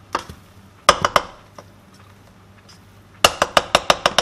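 Cooking utensils (spatula and slotted turner) knocking and clinking against the pan while tossing cooked fried rice: a few knocks about a second in, then a quick run of about eight taps near the end.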